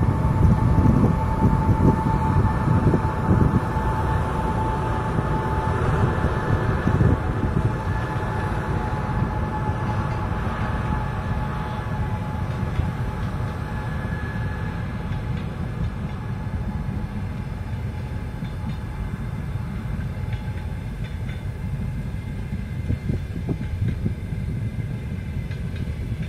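EP20 electric locomotive and its double-deck passenger coaches rolling past with a steady low rumble. A steady whine is heard in the first half and fades out about halfway through.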